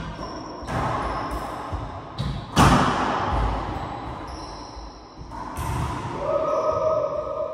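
Racquetball rally in an enclosed court: the hollow ball cracking off racquets and walls in several sharp, echoing hits, the loudest about two and a half seconds in.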